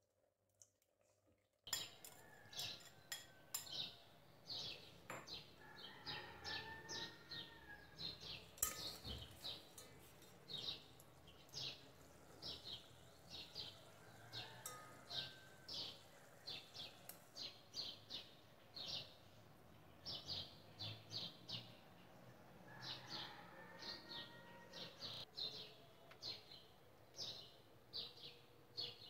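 Small birds chirping, short high chirps about twice a second, with a few longer, lower calls now and then. It starts suddenly about two seconds in.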